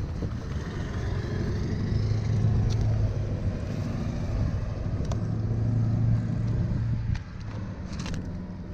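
An engine running steadily, its level swelling and easing a couple of times before dropping off about seven seconds in, with a few faint clicks over it.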